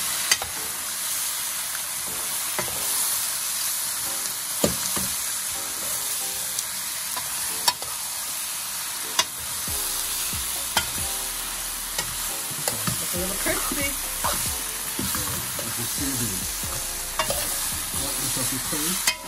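Curry-seasoned chicken pieces sizzling in a hot pot as a metal spoon turns them. The spoon strikes the side of the pot in a few sharp clinks.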